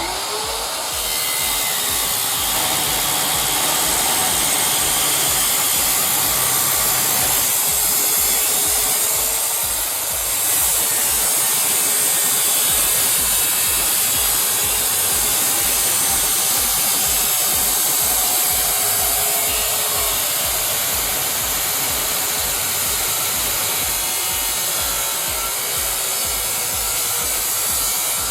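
Miter saw converted into a cut-off saw, its electric motor running continuously under cutting load, with a brief dip about ten seconds in. Background music with a steady low beat plays underneath.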